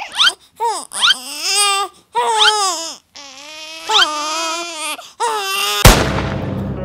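A young man crying loudly in long wailing sobs that rise and fall in pitch, with short breaks between them. Near the end a sudden hit cuts in and music begins.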